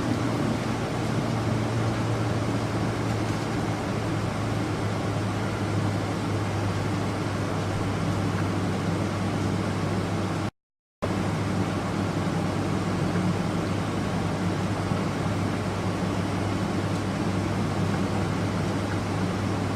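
Steady cabin noise inside a Boeing 777: an even rush of engine and air-conditioning noise over a low, constant drone. It drops out completely for about half a second near the middle.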